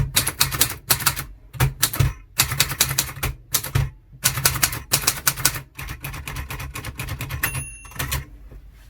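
Royalite manual typewriter being typed on: quick runs of sharp key strikes separated by short pauses, with a brief ringing tone, typical of the carriage bell, about seven and a half seconds in.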